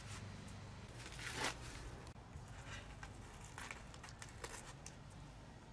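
Faint crinkling and tearing of a paper cement sack being cut open with scissors, a few short rustles and snips. One brief louder rasp comes about a second and a half in.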